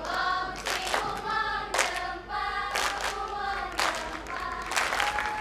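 A group of performers singing together in unison, with sharp claps about once a second.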